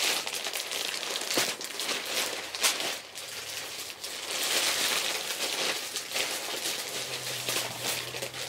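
Packaging crinkling and rustling as a parcel is opened by hand, with irregular sharp crackles throughout.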